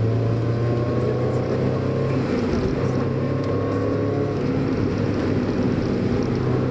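Mazda Roadster's four-cylinder engine running steadily under way, heard from inside the car, with a short dip in its note about two seconds in.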